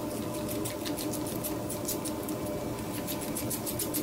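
Quick scratchy scraping strokes, about four a second, as a carbon electrode is pulled from a zinc-carbon cell and the black manganese dioxide mix is scraped off it. A steady low hum runs underneath.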